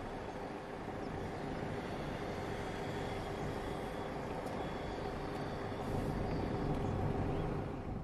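Car engine and road noise heard from inside a moving car: a steady hum with a low drone. It grows a little louder about six seconds in and fades out at the end.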